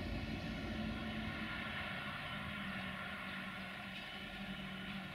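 Diesel locomotive engine running steadily at a distance, a low even drone with a steady hum that fades in and out.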